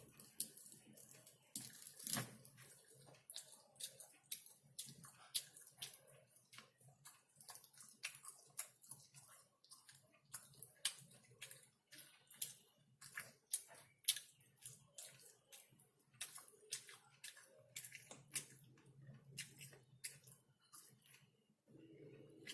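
Close-miked wet eating sounds from chewing chicken: irregular sharp lip smacks and mouth clicks, about two or three a second.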